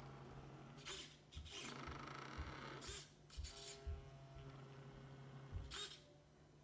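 Packaging being handled: short rustling and scraping strokes, about four of them, over a steady low hum.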